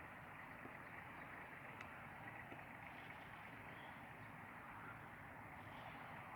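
Faint, steady outdoor background noise, an even hush with a few faint ticks.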